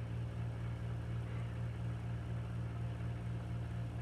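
Steady low electrical hum that runs without change, with nothing else standing out.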